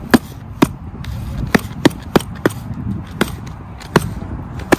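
Shoes stomping and jumping on clear lake ice: about nine sharp knocks at uneven intervals. The ice holds without cracking.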